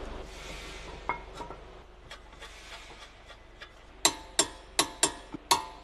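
Small metal parts clinking and being tapped: a brief hiss, scattered light metallic clicks, then from about four seconds a run of sharp ringing taps, about two or three a second.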